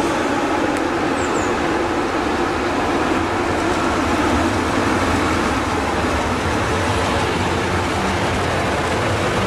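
DB Class 143 electric locomotive hauling a double-deck regional train past: a steady rush of wheels on rail with a low rumble.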